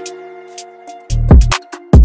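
Background music with a beat. Held notes play over sharp ticks, then deep bass hits come in about a second in and again near the end.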